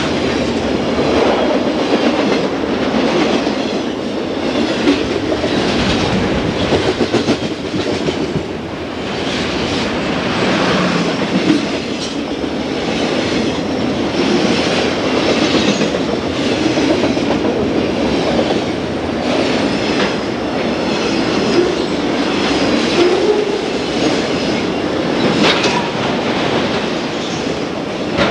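Freight train cars passing close at speed: a steady loud rumble of steel wheels on the rails, with repeated clicks and clacks from the wheels.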